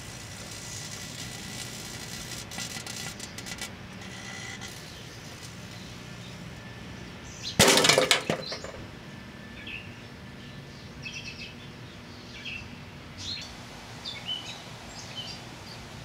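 A giant Bic butane lighter bursting inside a running 700-watt Hamilton Beach microwave: one sudden loud blast lasting about a second, a little before halfway through. Before it, crackling over the microwave's steady hum; after it the hum goes on, with birds chirping.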